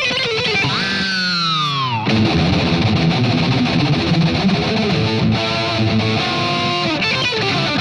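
Distorted electric guitar playing a fast heavy-metal solo: a long bend that swoops up and then dives in pitch about a second in, then rapid shredding runs.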